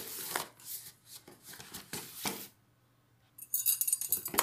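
Packaging being handled: rustling and crinkling of plastic wrap and cardboard as a hand mixer is lifted about in its box. It drops out to near silence around the middle, then comes back as louder, busy crinkling near the end.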